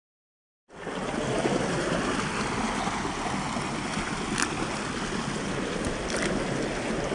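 Steady rush of running water, starting abruptly about a second in, with a couple of faint clicks over it.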